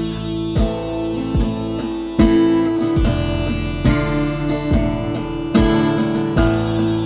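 Acoustic guitar strummed in a steady rhythm, with a strong stroke about once a second and the chords ringing between strokes.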